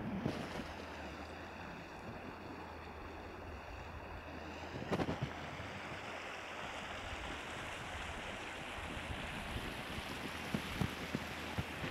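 Steady outdoor noise of wind on the microphone and a shallow river running over cobbles. There is a knock about five seconds in and a few light knocks near the end.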